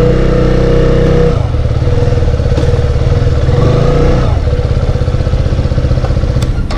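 Single-cylinder engine of a KTM 125 motorcycle idling just after starting. The revs shift a little about a second and a half in, dip slightly around four seconds in, then settle to a steady idle.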